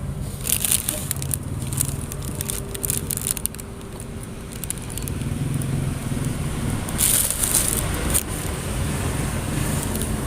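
Crisp plastic crackling and clicking from handling ink bottles or packaging, in two spells: from about half a second to three and a half seconds in, and again around seven to eight seconds in. A steady low rumble runs underneath.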